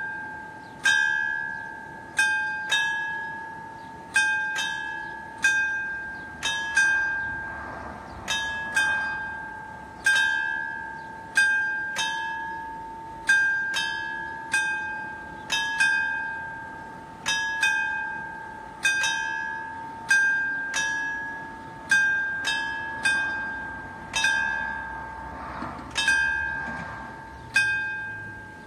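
Italian level-crossing warning bell striking about once a second, each stroke ringing on in two clear tones and fading before the next. It rings while the barriers lower to close the road for an approaching train, and it stops near the end once they are down.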